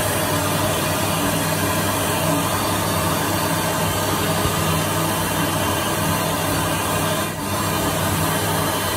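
Airtowel S9 hand dryer running, its fan blowing a steady, powerful rush of air over a low motor hum.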